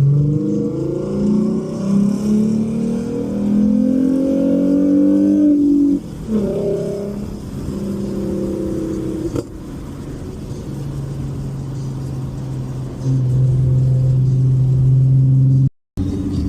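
Car engine accelerating hard, its pitch rising for about six seconds before dropping sharply at an upshift, then settling into a steady, lower cruising drone.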